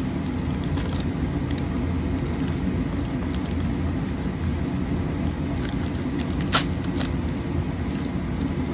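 Steady low background rumble, with a few light clicks as a small packaged bag of crystals is handled, and one sharp click about six and a half seconds in.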